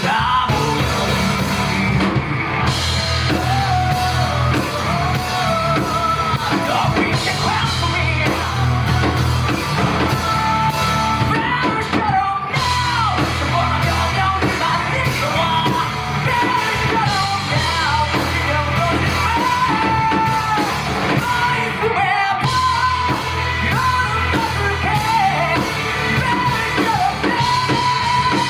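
Live rock band playing, with drums, bass, electric guitar and keyboard under a lead vocal.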